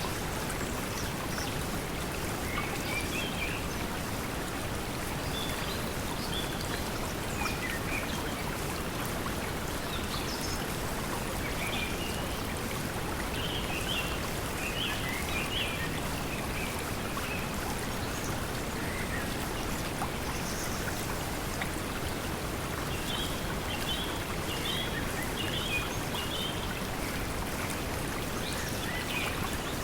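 Steady pink noise blended with flowing water, with short bird chirps scattered through it, in small clusters about halfway through and again later.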